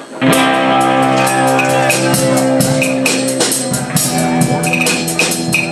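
Rock band playing live, all the instruments coming in together with a sudden loud start just after the beginning: sustained chords under a steady beat of drum and cymbal strokes.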